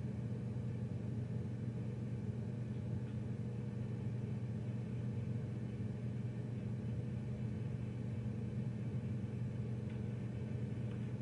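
Steady low electrical hum and hiss from a powered PA speaker with a live microphone, without any feedback howl.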